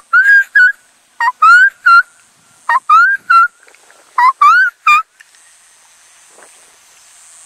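A person imitating a Gambel's quail call close by: four loud phrases of three short rising whistled notes each over about five seconds. This is a call to draw the male quail toward the caged hen.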